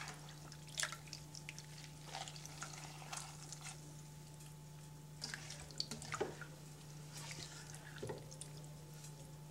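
Water dripping and splashing back into a saucepan as handfuls of wet vegetables are squeezed out by hand: irregular small splashes and drips.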